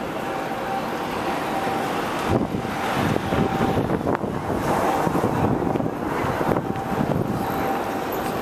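City street noise: a steady wash of traffic with wind gusting on the microphone from about two seconds in, over a thin steady tone.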